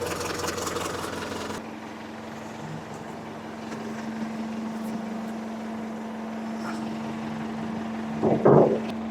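Ford 555C backhoe's engine idling steadily as it warms up, just after being started with the help of ether. A brief louder burst comes near the end.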